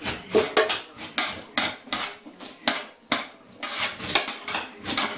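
A metal spoon scraping and clinking against a metal tray as shredded cabbage and carrot are stirred, in an uneven run of strokes, a few a second.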